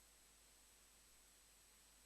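Near silence: faint steady hiss with a thin high tone.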